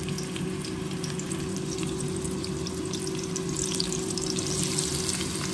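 Sliced onions sizzling in hot oil in a karahi: a steady hiss with many small pops, over a steady low hum.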